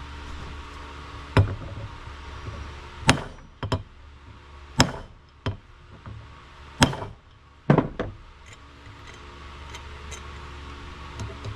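Hammer blows driving a new bearing race into a 1959 Ford F-100 wheel hub: about seven sharp metal strikes at irregular spacing, the last few fainter, over a steady low hum.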